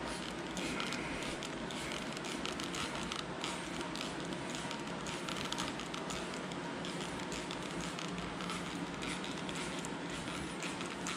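Hand trigger spray bottle squeezed over and over, misting 303 fabric protectant onto a fabric convertible top: a run of short, hissing sprays.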